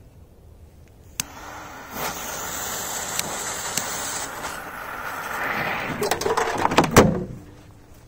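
A click, then a steady hiss of a jet torch lighter and sparking firecracker fuses burning, swelling toward the end, with scattered knocks and a loud thump about seven seconds in.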